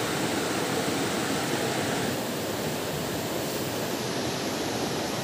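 Steady rushing of a nearby river, an even wash of flowing water that thins slightly in its upper part about two seconds in.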